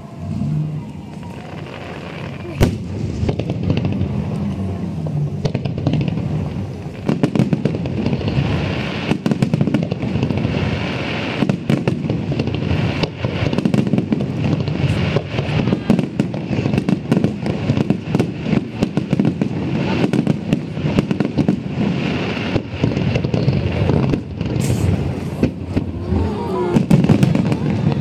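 Fireworks display: aerial shells bursting with one sharp bang about two and a half seconds in, then a dense run of bangs and crackles from about seven seconds on.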